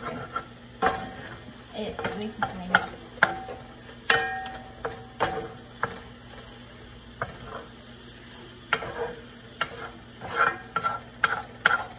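A wooden spatula stirring scrambled eggs and sausage in a cast-iron skillet: irregular scrapes and sharp knocks against the pan, some with a short metallic ring, over a faint frying sizzle. The knocks thin out for a couple of seconds in the middle.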